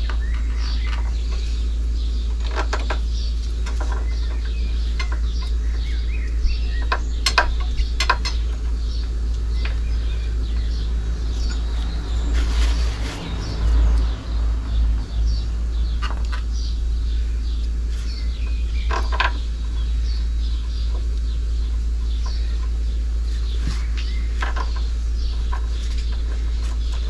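Scattered light clicks and taps of motorcycle brake parts and tools being handled while a caliper bolt is greased and refitted, over a steady low hum.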